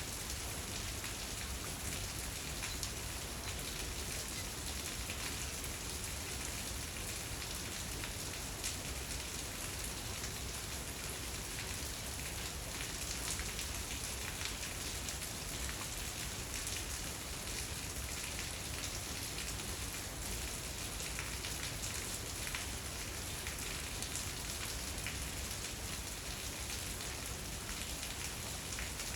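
Steady rain falling outside, an even hiss of countless small drop ticks that holds level throughout.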